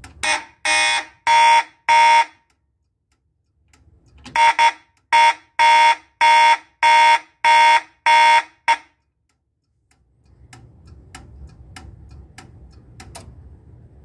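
Fire alarm horn sounding in march-time pulses, its blasts switched on and off by the Simplex 2001 panel's relays: about four buzzy blasts, a pause of about two seconds, then about seven more before it stops about nine seconds in. Faint clicks follow.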